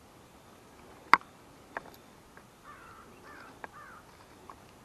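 A bird calling faintly three times in quick succession, about three seconds in, over quiet outdoor background. A single sharp click about a second in is the loudest sound, with a couple of fainter clicks after it.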